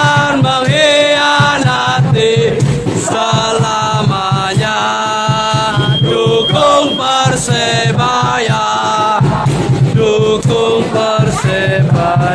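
A crowd of football supporters chanting and singing together in unison, loud and continuous, with a rough rhythmic beat of sharp hits underneath.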